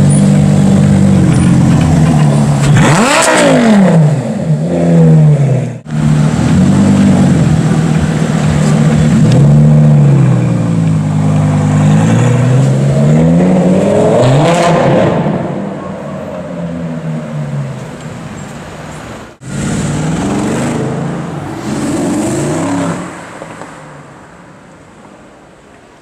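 Lamborghini Gallardo Superleggera's V10 revving repeatedly at low speed and pulling away, each rev rising and falling in pitch over a steady burble; the engine note fades toward the end.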